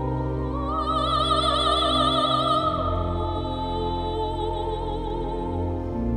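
A soprano sings a high held note with wide vibrato over sustained pipe organ chords. Her voice falls away about three seconds in, and the organ holds its chords alone, shifting its bass note near the end.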